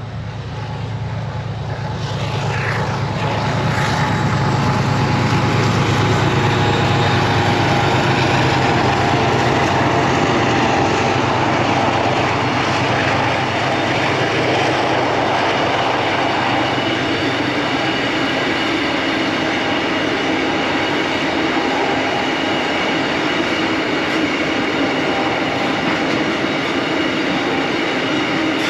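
Diesel freight locomotives hauling a train of tank wagons, their engines running with a steady low hum. The sound grows louder over the first four seconds, then holds steady.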